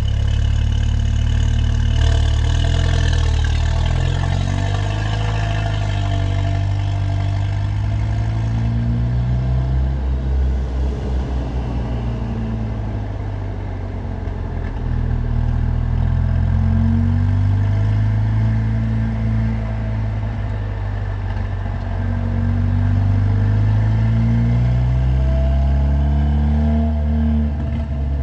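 Loud exhaust of a Mercedes-AMG CLA45's turbocharged four-cylinder under way, the engine note climbing and dropping several times as the car accelerates through the gears.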